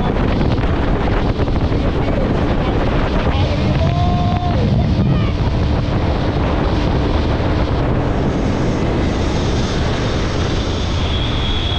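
Motorcycle running at speed with heavy wind noise buffeting the microphone.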